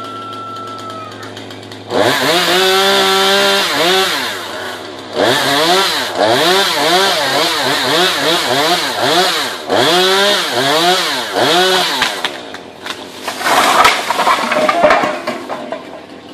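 Chainsaw engine revving hard, its pitch rising and falling over and over as the throttle is worked, with a few short pauses. Near the end a rough, crackling noise takes over and is the loudest sound.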